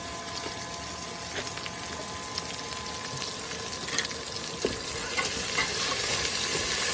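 Peppers, onions, potatoes and carrots frying in oil in a pan: a steady sizzle that grows louder toward the end, with a few light clicks scattered through it.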